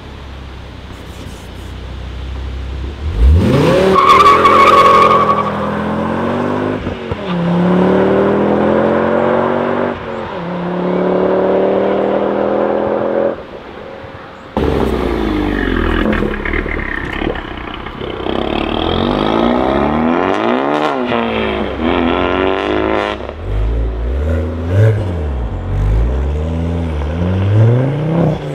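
Mk2 Ford Focus ST's turbocharged five-cylinder engine accelerating hard from a pull-away, the revs climbing and dropping back at each gear change. After a sudden break about halfway, a second Mk2 Focus ST revs and accelerates, the engine note rising and falling sharply several times near the end.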